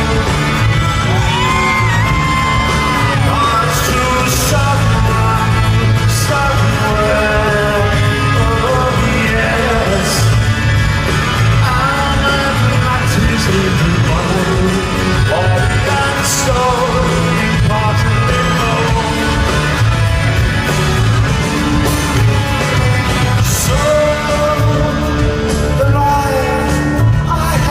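Live rock band playing loudly with a male lead singer, heard from the audience in a large hall, with cymbal crashes cutting through now and then and occasional crowd shouts.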